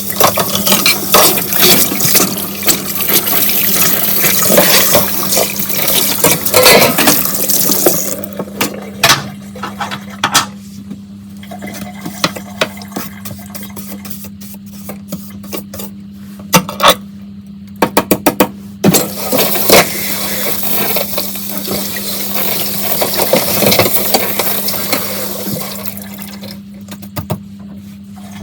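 Tap water running into a kitchen sink while dishes are washed, with dishes clinking and knocking against each other. The water runs strongly for about the first eight seconds, then comes and goes among scattered sharp clinks.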